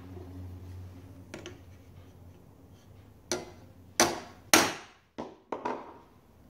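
A small hammer taps a handsaw tooth against a saw-setting anvil to correct a tooth that is slightly overset. The sharp metal strikes are uneven: a couple of light taps, two loud ringing blows about four seconds in, then three lighter taps.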